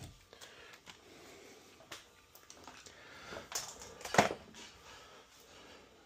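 Handling noise: scattered small clicks and rustles, with a cluster of louder knocks about three and a half seconds in and one sharp knock at about four seconds.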